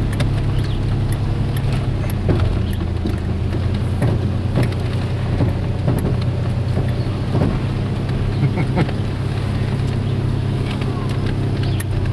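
Motor vehicle's engine running steadily, heard from inside the cab as it climbs a rough dirt road, with scattered knocks and rattles from the bumps.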